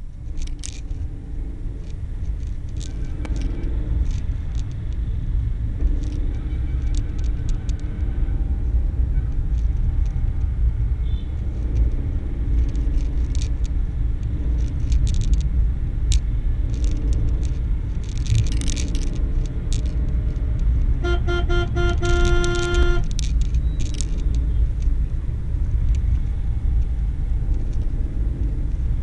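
Car driving through town traffic, heard from inside the cabin as a steady low rumble of engine and road noise with scattered light knocks. A vehicle horn honks in short pulses for about two seconds around two-thirds of the way through.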